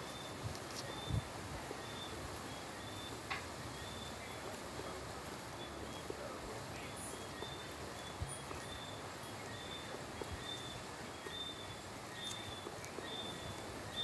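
Tropical night chorus: one high, short chirp repeating about twice a second over a steady hiss, with a few faint clicks.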